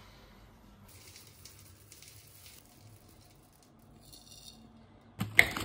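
Rolled oats poured from a container into a plastic mixing bowl, a soft rattling hiss. About five seconds in, a sudden loud clatter of many small hard impacts starts and keeps going.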